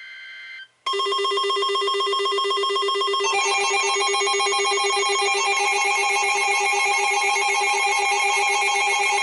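Emergency alert attention signal: after a brief electronic burst, a loud electronic alarm tone with a fast trill starts about a second in, and a second pitch joins about three seconds in. It is the alert tone that announces a new severe thunderstorm warning.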